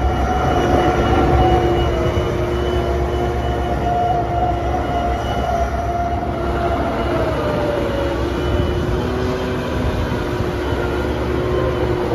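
Bobcat 963 skid steer's 105 hp Perkins diesel engine running steadily, with a whining tone over the engine rumble that slides lower about seven seconds in.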